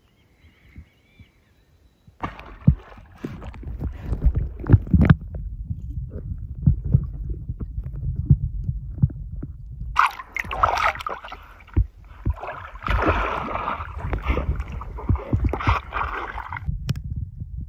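Lake water sloshing and gurgling around a camera held at and under the surface: a muffled low rumble full of small knocks, starting about two seconds in. From about ten seconds to near the end a brighter bubbling and splashing comes on top.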